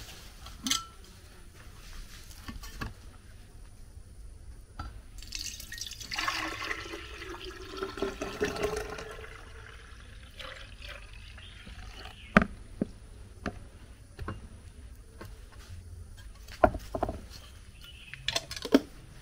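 Orange and pineapple juice being poured into a glass, a liquid rush starting about five seconds in and lasting about four seconds, its filling tone rising in pitch. A few sharp knocks of the glass and container follow.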